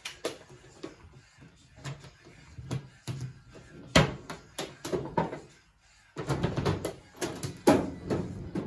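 Plastic lids of a twin-tub washing machine being handled and shut: a string of knocks and clatters, the loudest about four seconds in, then a busier run of knocks near the end.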